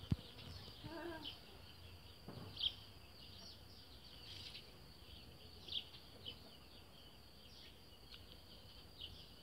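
Birds chirping, with many short high chirps running on irregularly. A sharp click comes right at the start, and a brief pitched call is heard about a second in.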